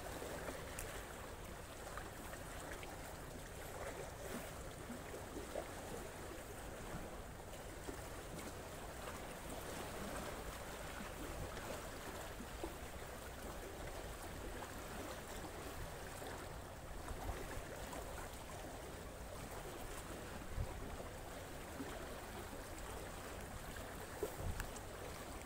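Steady wash of sea water, with a few faint, brief clicks of handling as a hook is worked out of a caught fish's mouth.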